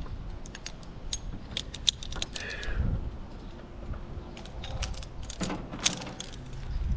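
Metal gear clinking and jangling as it is handled: a run of irregular light metallic clicks over low handling rumble.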